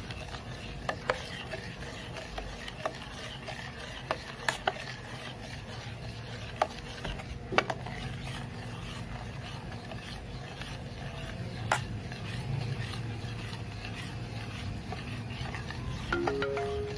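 A metal spoon stirring a thin liquid chocolate gelatin and milk mixture in a stainless steel pot, with occasional sharp clinks as the spoon knocks the side of the pot.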